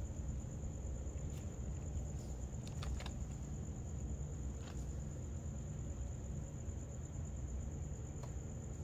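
A cricket trilling steadily on one high note over a low steady rumble, with a few faint clicks about 1.5, 3 and 4.5 seconds in.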